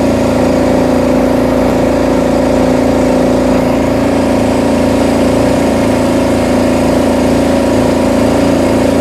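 Boat engine running steadily at a constant speed, with a loud, even drone.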